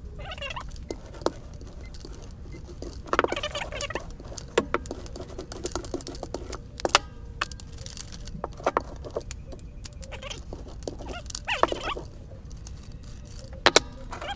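Paint roller working wet paint over an MDF frame with a sticky, crackling patter, mixed with scattered light knocks and clicks as the frame and roller are handled and set down on the bench. The roller stipples the paint into a textured finish.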